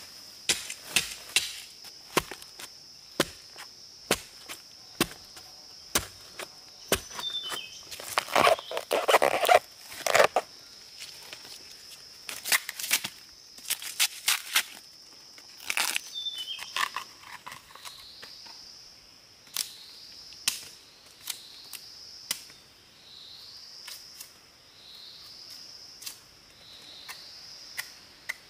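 Forest ambience with a steady high insect drone, broken by many sharp clicks and knocks. There is a brief rustling patch about a third of the way in. From about two-thirds in, a short rising chirp repeats roughly every second and a half.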